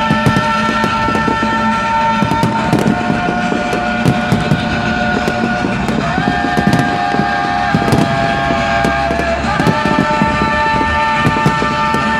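Fireworks going off in quick, irregular bangs and crackles, with a low rumble, over music played for the display, whose held chords change every few seconds.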